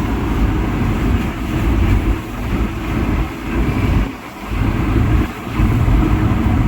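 Low rumble of a vehicle on the move, engine and road noise together, dipping briefly in level several times.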